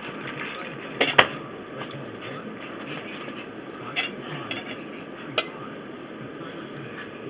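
A metal fork clinking and scraping on a ceramic dinner plate while eating: a few sharp clinks, the loudest pair close together about a second in, and lighter ones around four and five seconds.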